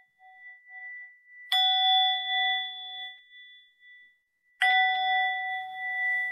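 Singing bowl struck twice, about a second and a half in and again about three seconds later, each strike ringing with several steady tones that fade away; the ring of an earlier strike is still dying away at the start. Heard over a video call.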